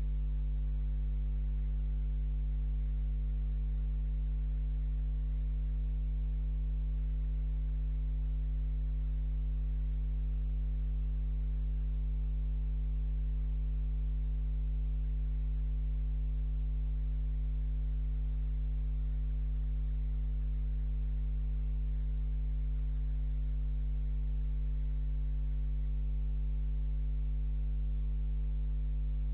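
Steady electrical mains hum, a low buzz with higher overtones at an unchanging level, picked up on a security camera's audio.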